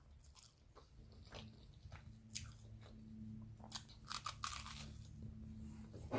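Faint close-up chewing of spaghetti, with scattered small clicks of the mouth and lips over a steady low hum.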